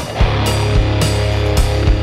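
Background rock music with heavy bass, distorted guitar and a steady drum beat.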